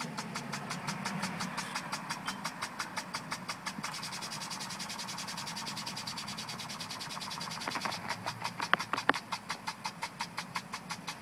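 Orbit impulse sprinkler's metal head running. The impact arm snaps against the water jet in a steady rapid ticking, several ticks a second, with a couple of louder clacks about nine seconds in.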